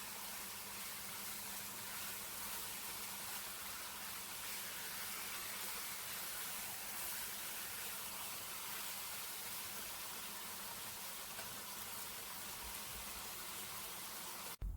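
Chicken fillets frying in oil in a pan, giving a steady sizzle that cuts off suddenly near the end.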